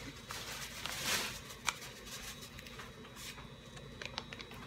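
Seasoning shaken from a packet onto ground turkey in a bowl: a soft rustle about a second in, then a few light ticks.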